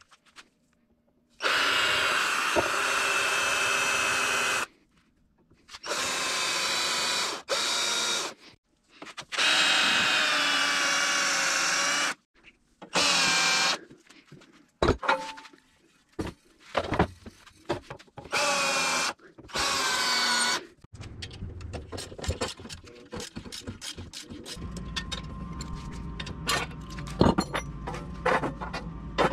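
Cordless drill running in repeated bursts of one to three seconds, its motor pitch shifting within each burst, while drilling aluminum frame tubing. It is followed in the last several seconds by quieter scattered clicks and knocks of metal being handled.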